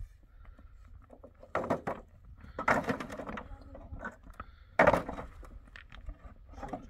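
A handful of separate knocks and thuds, the loudest about five seconds in.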